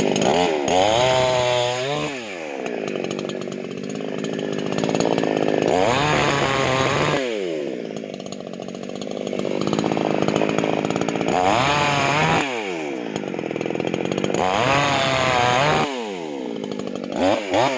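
Delta Pro chainsaw running and being revved up and let back down about four times, with lower running between the revs and another rev starting near the end.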